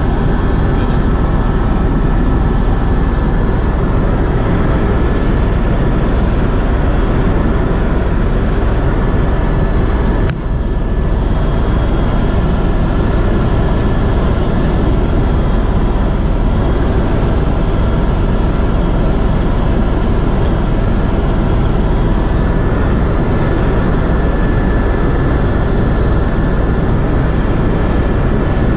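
Helicopter in flight: a steady, loud rotor and engine drone with thin, steady whining tones above it. A brief dropout comes about ten seconds in.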